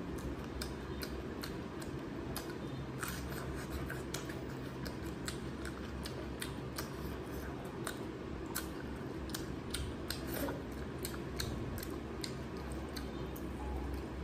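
Eating sounds from someone chewing rice and curry eaten by hand: many quick, irregular wet clicks of chewing and handling the food, over a low steady hum.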